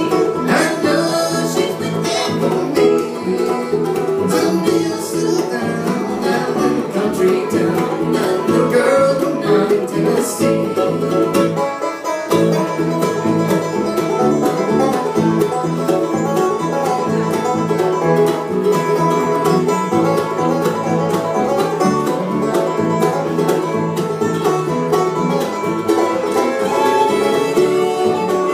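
Live bluegrass band playing an instrumental break, the banjo out front over acoustic guitar, upright bass and fiddle.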